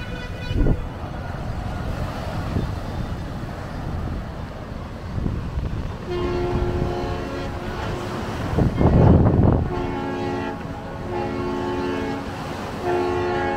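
Waves washing onto a sand beach, with two louder surges. From about six seconds in, held horn-like tones that shift in pitch every second or two join the surf.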